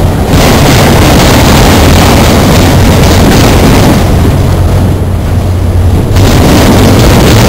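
Freight train of autorack cars rolling past close by: a loud, steady rumble of steel wheels on the rails. The higher clatter eases for a couple of seconds past the middle, then returns.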